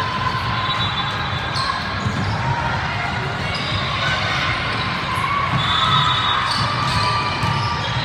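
Sports-hall din from a volleyball tournament, echoing in a large gym: sneakers squeak on the court floor, balls thud, and crowd chatter runs underneath.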